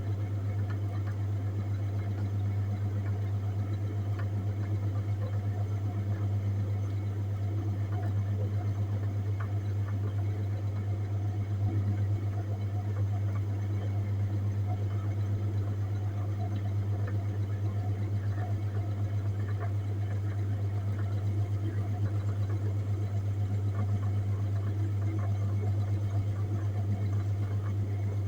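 Refrigerated display case's compressor running with a steady low hum that does not change.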